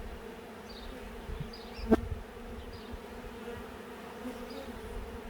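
Swarm of honeybees buzzing steadily around a hive box, a continuous hum. A single sharp knock sounds about two seconds in.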